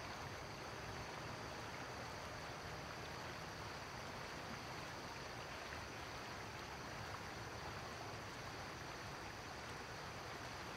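River water flowing and rippling over rocks in a shallow riffle, a steady rushing without distinct splashes.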